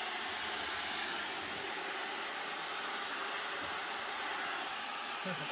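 Hand-held hair dryer running steadily on the hair, a constant rushing blow with a faint high whine.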